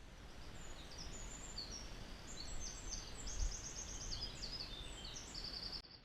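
Small birds singing in quick high-pitched phrases and trills over a steady rush of river water, with a low thump about halfway through. The sound cuts off suddenly at the end.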